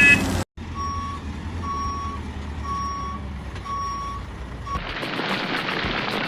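Vehicle reversing alarm beeping four times, about once a second, over a low engine hum. About five seconds in it cuts abruptly to a steady hissing rumble.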